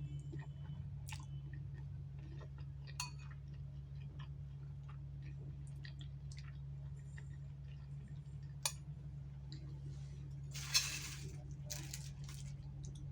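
A person chewing food close to the microphone, with scattered small mouth and utensil clicks over a steady low hum. A brief louder crunch comes about eleven seconds in.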